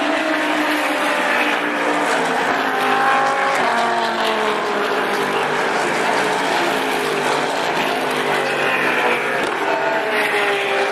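Several GT race cars running down the straight, their engine notes overlapping, each rising in pitch and dropping as the cars accelerate and change gear.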